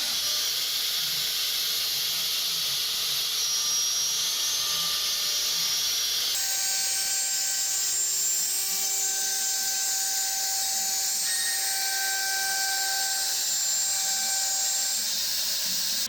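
Woodworking machines cutting wood: a steady high hiss with faint whining tones, which changes abruptly about six seconds in.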